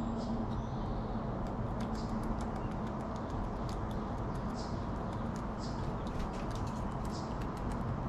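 Eastern gray squirrel chewing food: many small, quick clicks over a steady low background rumble.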